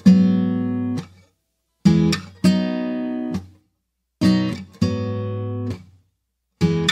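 Background music: acoustic guitar strumming chords in a stop-start pattern. A short strum is followed by a longer ringing chord about every two seconds, with brief silences between.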